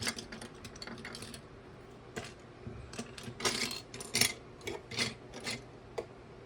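Plastic building bricks clicking and rattling as pieces are handled and pressed together, a string of irregular sharp clicks with a short lull about two seconds in.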